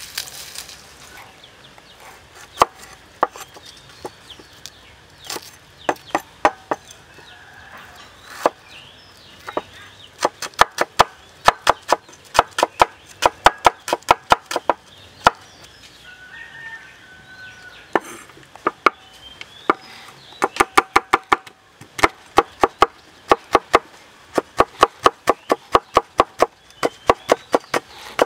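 Cleaver chopping shallots and red chilli on a wooden board. It starts with a few scattered single knocks, then comes in fast runs of sharp chops, about five a second, with a short break in the middle.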